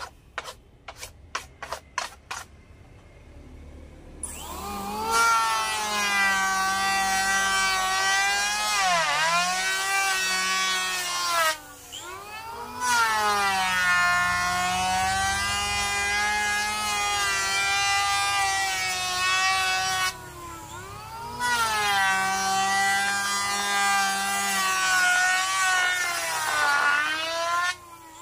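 A few short clicks, then from about four seconds in an electric hand planer running on a wide glued-up wooden panel: a loud high whine whose pitch dips now and then as it cuts, dropping away briefly twice.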